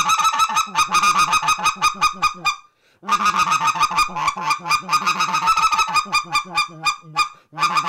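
Wooden specklebelly goose call blown in a clear-air "machine gun cluck": rapid strings of short squealing notes, about seven a second. They come in three runs, with brief breaks about two and a half and seven seconds in.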